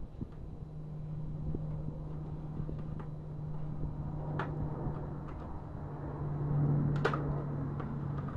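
Sharp plastic clicks and knocks as a headlamp and turn-signal assembly is handled and fitted against the truck's front-end brackets, the loudest a little before the end, over a steady low hum.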